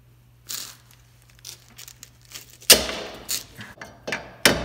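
Steel bottom return spring of a Ford Focus rear drum brake being stretched with pliers and hooked into the brake shoes. A faint scrape, then small metallic clicks and several sharp snaps of metal on metal, the loudest about two and a half seconds in and another near the end.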